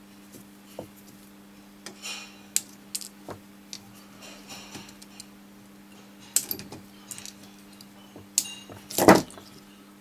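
Side cutters snipping the excess wire leads off resistors on a circuit board: a scatter of sharp metallic clicks and snips, the loudest one near the end, over a steady low hum.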